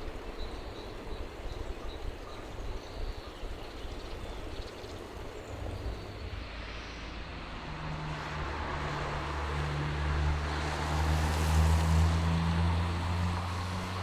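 A motor vehicle approaching and passing: an engine hum comes in about halfway through, and tyre and road noise swells to its loudest a couple of seconds before the end, then eases off while the engine hum carries on.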